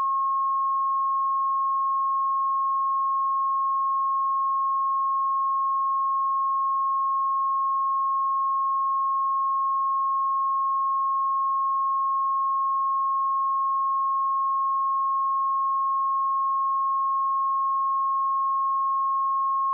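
A pure 1082 Hz sine-wave test tone, held at one steady pitch and level.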